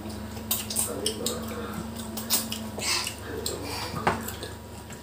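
Mealtime eating sounds: a string of short, sharp clicks and clinks from plates, cups and utensils on the table, mixed with close-up chewing and lip smacking as grilled chicken is eaten by hand.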